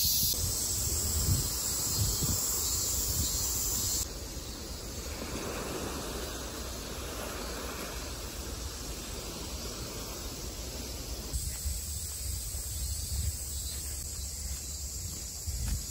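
Outdoor ambience across several cuts: wind and footsteps on a leaf-covered forest path, then for several seconds in the middle small waves washing onto a sandy beach with wind, then the forest path again.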